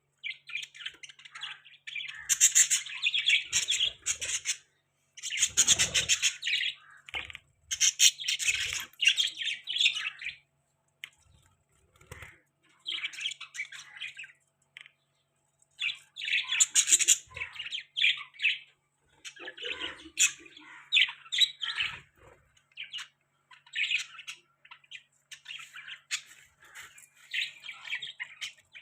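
Budgerigars chirping and chattering in busy bursts with short pauses between them, thinning out for a few seconds near the middle.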